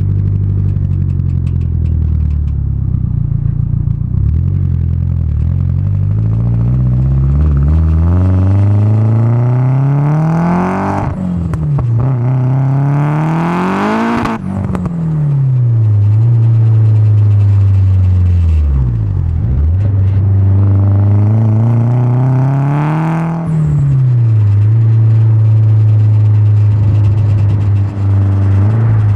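Turbocharged Nissan SR20DET four-cylinder engine with a decatted 3-inch single-silencer exhaust, pulling hard under acceleration. Its pitch climbs steeply with a gear change about eleven seconds in, peaks at about fourteen seconds, and falls away. It pulls up again, drops back about twenty-three seconds in, and settles to a steady cruise.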